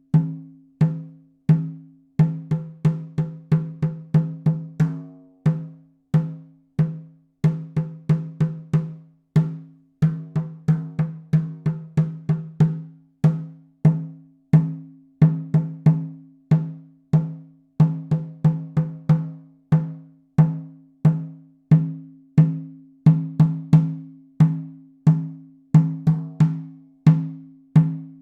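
18-inch calfskin shaman frame drum on a mulberry wood hoop, struck over and over with a leather-headed beater. It plays single beats and quick runs, each a deep booming tone that rings and fades. The skin is dry and tight from low humidity.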